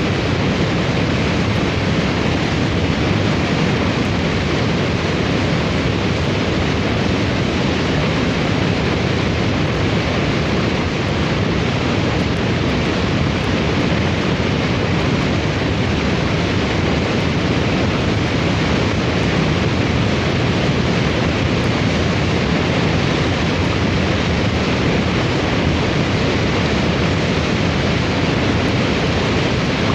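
Hurricane-force wind as a sound-effect recording: a steady, dense rushing roar without distinct gusts or breaks.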